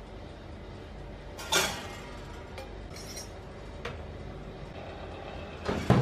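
Small stainless steel cake molds handled at a toaster oven: one sharp metallic clink about one and a half seconds in, a light tick near four seconds, and a couple of knocks near the end as the oven door is shut. A faint steady hum runs underneath.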